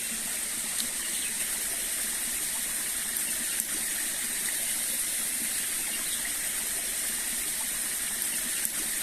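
Steady rush of water flowing and falling at a small waterfall.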